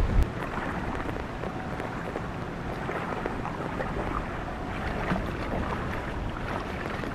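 Wind buffeting the microphone cuts off just after the start, giving way to a steady hiss of rain over floodwater with the low running of boat motors.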